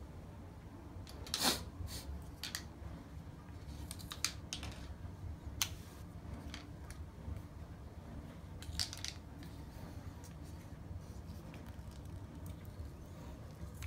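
Irregular light clicks and taps of plastic tweezers and contact lens packaging being handled on a stone countertop, the loudest about a second and a half in, over a low steady room hum.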